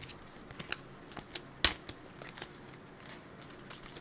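Pokémon trading cards and a foil booster-pack wrapper being handled, with light crinkling and scattered soft ticks and one sharp click about a second and a half in.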